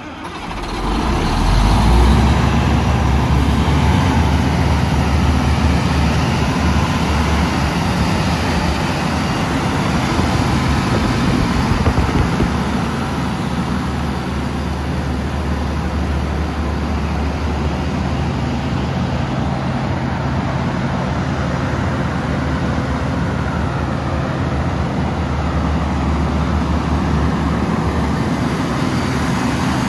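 Diesel engine of a Sullair 1350/350 portable air compressor coming up to speed in the first couple of seconds, then running steadily with a low drone.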